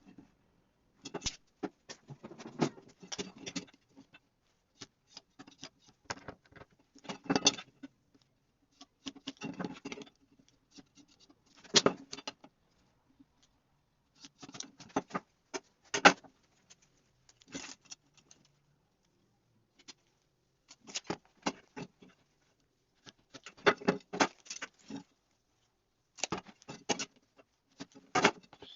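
Intermittent clusters of light metallic clinks and rattles, with short quiet gaps between them, as of steel pieces being handled and set down.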